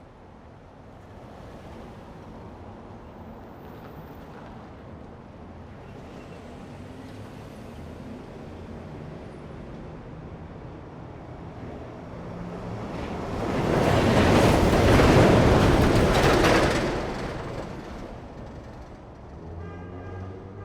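Steady city traffic. Past the middle, one vehicle swells up, passes close and loud for a few seconds, then fades away.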